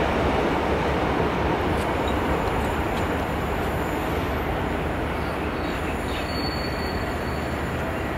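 Class 66 diesel-electric locomotive's two-stroke V12 engine running as it hauls a freight train of wagons slowly over pointwork, with the steady rumble of wheels on rail. A faint high wheel squeal comes in about six seconds in.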